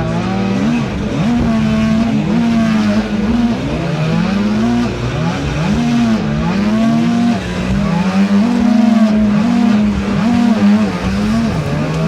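Boat motor running hard under load, its pitch rising and falling again and again every second or so, over a rushing low rumble.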